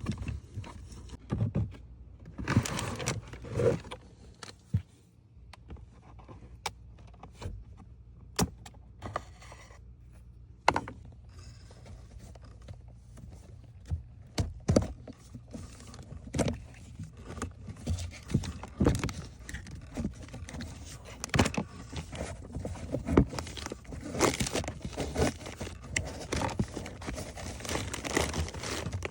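Irregular clinks, knocks and scrapes of hand tools and metal parts being handled, with a few louder knocks scattered through.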